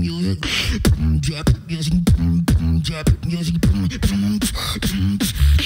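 A beatboxer performing solo into a microphone through a PA: a rhythmic hummed bass line under sharp kick and snare sounds and hissing hi-hats, with several quick falling bass glides.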